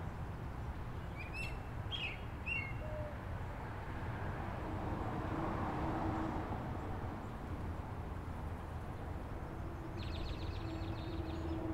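Outdoor background ambience: a steady low rumble with a few short bird chirps about one to three seconds in. A brief rapid ticking comes near the end.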